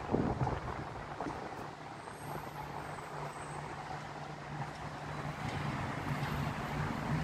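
Road traffic heard from high above a city street, with wind buffeting the microphone at first. A vehicle engine's low, steady drone comes in a couple of seconds in and grows louder toward the end.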